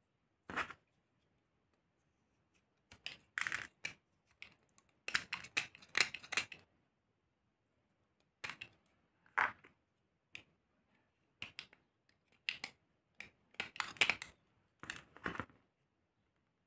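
Plastic shotgun wad being handled and cut with a utility-knife blade: scattered short clicks and scrapes in irregular bursts, with quiet gaps between.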